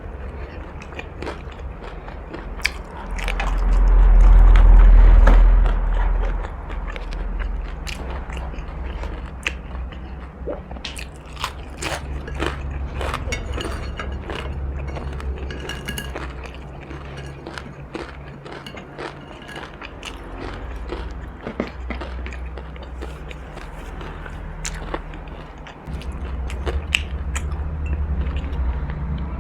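Close-miked chewing and crunchy bites of food, with many sharp crackling crunches. A loud low rumble comes about three seconds in and lasts a few seconds.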